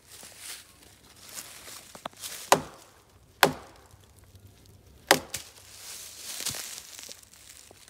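Three loud wood knocks: a wooden stick struck hard against wood. The second knock comes under a second after the first and the third nearly two seconds later, each with a short ring. Dry leaves rustle underfoot in between and afterwards.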